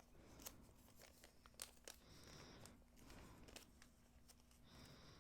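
Faint crinkling of a small plastic packet being handled and opened, with a few light clicks.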